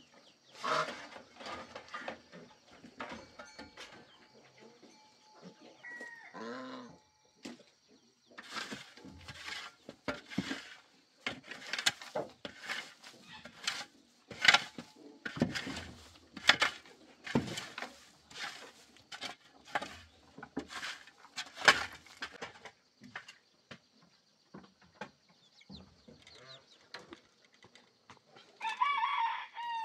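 A metal shovel scraping and scooping dry litter off a dirt floor in a run of short scrapes, with chickens clucking.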